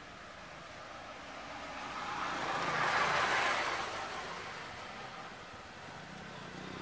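A vehicle passing by: its noise swells to a peak about three seconds in and then fades away.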